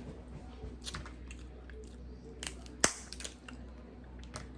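Close-miked eating of shellfish: chewing with scattered clicks and cracks of shell being broken, the loudest a single sharp crack just under three seconds in.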